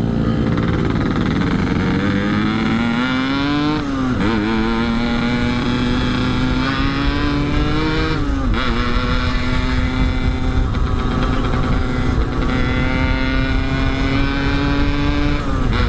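Yamaha RX-King two-stroke single-cylinder motorcycle engine accelerating under riding load. The revs climb, drop at an upshift about 4 s in, climb again, drop at a second shift about 8.5 s in, then hold steady and ease off near the end. The engine runs on a rejetted carburettor with an open air filter; the rider finds its low-end pull hesitant and suspects an oversized pilot jet.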